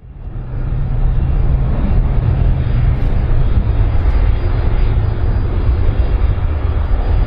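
Engines of an Airbus jet airliner rolling on the runway: a loud, steady roar with a heavy low rumble that fades in at the start.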